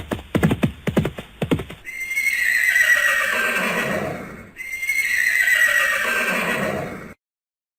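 Horse's hooves clip-clopping rapidly for a couple of seconds, then two long whinnies, each starting high and falling in pitch. The sound cuts off suddenly near the end.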